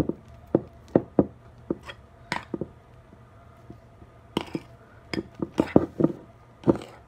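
Spoons clinking and knocking against mixing bowls as fluffy slime is stirred with borax activator, in irregular strokes with a short lull about halfway.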